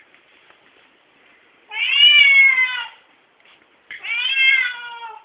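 Siamese cat giving two long, loud meows, each a little over a second and falling in pitch toward its end.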